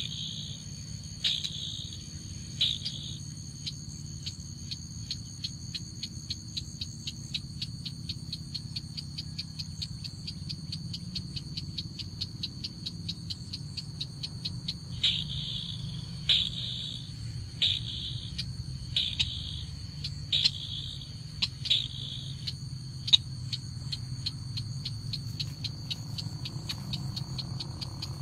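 Crake calling: a long run of dry, evenly spaced clicking notes, several a second, broken by louder, fuller call notes about every second and a half at the start and again about halfway through. A steady high-pitched tone runs underneath.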